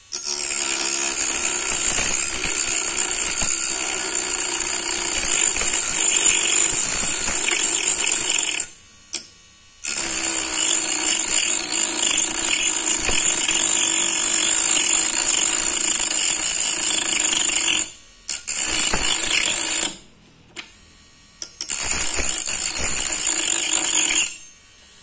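Homemade mini rotary tool, a small DC motor spinning a thin toothed cutting disc, grinding through a strip of wood with a high whine. It cuts in four runs, the first two about eight seconds each and two short ones near the end, with brief silences between.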